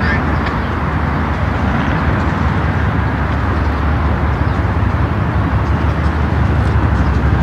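Diesel locomotive engine running with a steady low rumble during freight-car switching.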